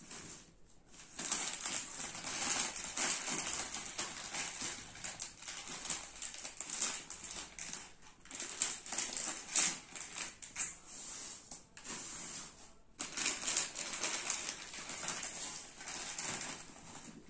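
Plastic courier mailer and inner plastic bag crinkling and rustling against cardboard as a parcel holding a helmet mount is unwrapped by hand. The crinkling starts about a second in and stops briefly a couple of times.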